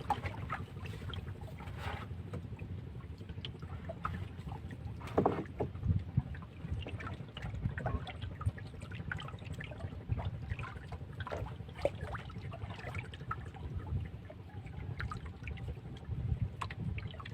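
Outdoor water sounds with a low rumble of wind on the microphone and scattered small ticks and knocks, one louder knock about five seconds in.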